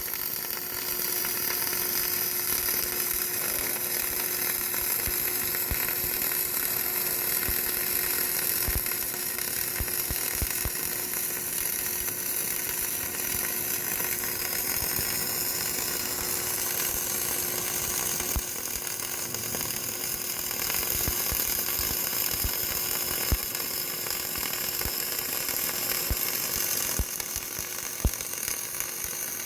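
CO2 MIG welding arc crackling and sizzling steadily, with a steady hum underneath and a few sharper pops.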